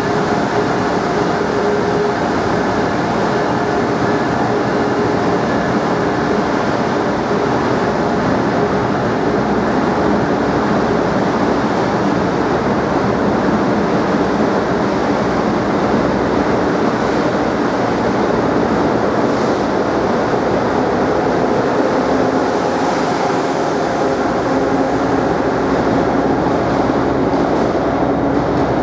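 Amtrak train running: a steady rumble and rail noise with a few faint, steady tones in it, unbroken throughout.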